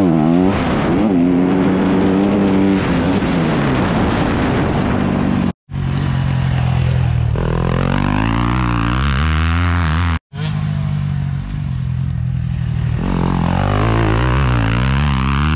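Motocross bike engine revving hard and easing off as it is ridden around a dirt track, its pitch climbing and dropping with throttle and gear changes. It is first heard close up with wind rush from on the bike, then from trackside as the bike goes by, and cuts out for an instant twice.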